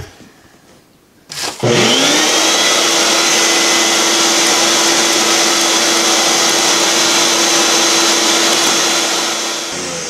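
Shop vac switched on with a click after about a second and a half, its motor whining up to speed and then running steadily as the bare hose sucks dust from the refrigerator's condenser coils. Near the end it is switched off and starts to wind down.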